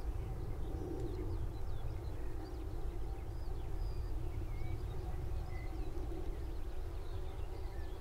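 Skylarks singing, a scatter of faint high chirps and trills, over a steady low rumble of distant traffic, which is the loudest sound. A faint insect buzz runs underneath.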